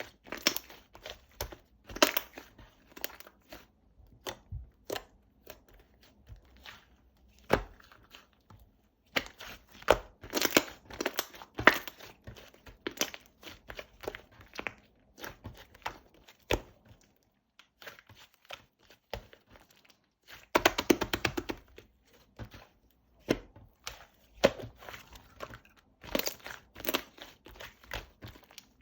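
Slime being squished and stretched by hand, making irregular wet clicks, pops and crackles. There are denser bursts of crackling about ten seconds in and again about twenty-one seconds in.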